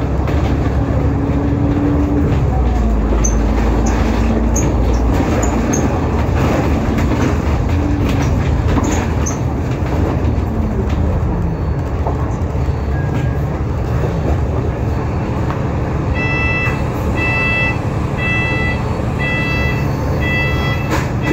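Cabin noise of an Alexander Dennis Enviro500 MMC double-decker bus under way: the diesel engine and drivetrain drone, the engine tone falling about ten seconds in as the bus changes speed. From about sixteen seconds in, a beep repeats roughly once a second.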